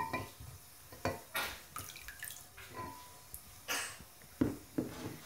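Silicone spatula stirring sticky glue slime in a glass mixing bowl: a series of short wet squelches and scrapes as the activator is worked in and the slime starts to come together, with one short ringing note about three seconds in.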